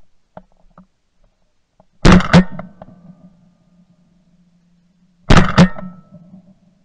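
Two loud bursts of shotgun fire at flying mallards, about three seconds apart. Each is a sharp double report that trails off quickly.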